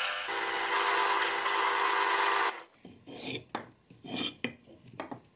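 Bench drill press boring a hole into a wooden block with a twist bit, running steadily for about two and a half seconds and then stopping abruptly. It is followed by a series of short rubbing strokes as wood chips are brushed off the block by hand.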